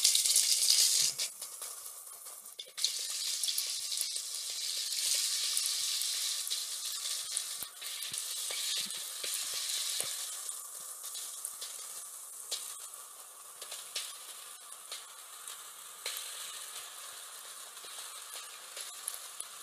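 Beef cubes searing in very hot fat in a cast iron pot, sizzling loudly. The sizzle flares up again each time more meat goes in over the first ten seconds or so, with scattered spattering pops, then settles to a quieter steady sizzle as the meat fries unstirred.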